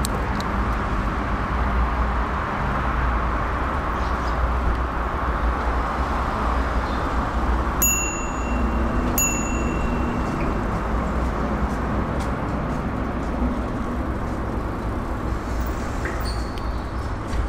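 Bicycle being ridden on a paved path: steady tyre and wind rumble on a handlebar-mounted camera. About halfway through, a bicycle bell dings twice, about a second and a half apart, the second ring lasting longer.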